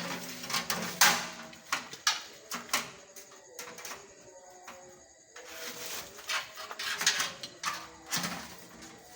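Irregular knocks, clicks and short scraping noises, with faint music underneath.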